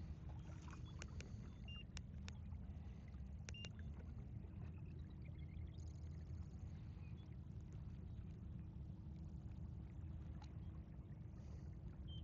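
Small fishing boat moving on shallow water: a steady low rumble with a faint steady hum, and scattered light clicks and short high chirps.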